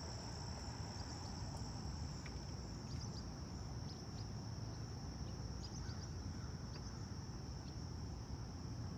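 Steady chorus of crickets, a continuous high-pitched trill, over a low background rumble, with a few faint short chirps.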